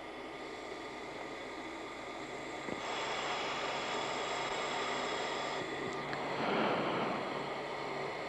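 Steady F-16 cockpit noise at supersonic speed, near Mach 1.8, heard through the pilot's intercom: a hiss with several steady hums. It steps up a little about three seconds in and swells briefly about two-thirds of the way through.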